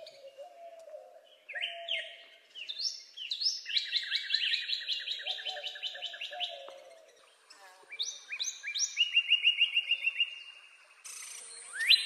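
Northern cardinal singing: a few down-slurred whistles, each followed by a fast trill of repeated notes. This happens twice, with a short pause about seven seconds in.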